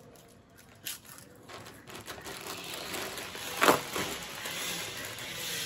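Lay's crisp packets crinkling and rustling as they are torn open by hand, with one sharp, loud rip about three and a half seconds in.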